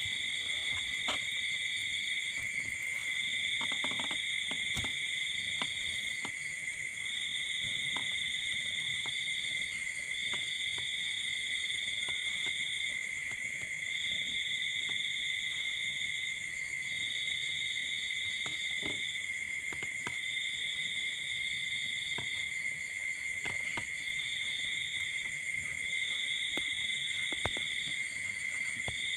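Insects trilling steadily at several pitches at once, the highest-pitched trill switching on and off in stretches of one to two seconds with short breaks. Faint scattered taps sound now and then.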